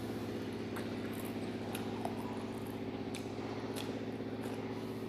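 A few faint, short crunches from chewing crispy fried chicken. Under them runs a steady low hum.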